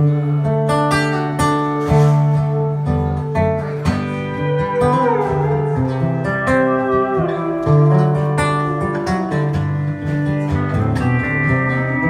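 Instrumental break in a slow country song: a pedal steel guitar plays a melody with gliding, sliding notes over strummed acoustic guitar chords.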